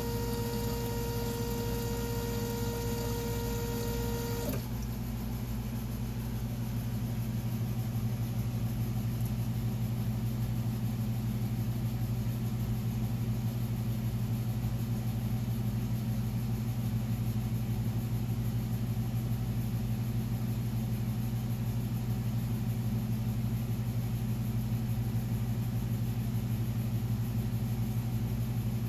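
ASNU fuel injector test bench running with a steady low hum, and a higher whine over it that cuts off suddenly about four and a half seconds in.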